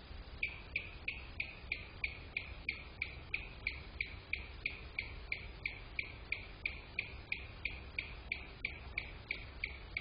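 An animal call: a short, high, slightly falling note repeated very evenly about three times a second.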